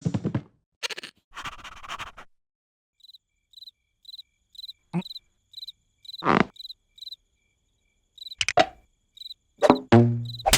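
Cartoon sound effects: a cricket chirping steadily about twice a second, with scattered plops and quick swishes, and a short low vocal sound near the end.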